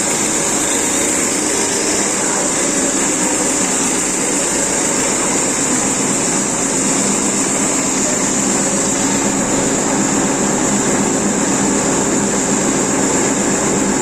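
CNC cutting machine running steadily, with a continuous high-pitched hiss over a lower mechanical hum.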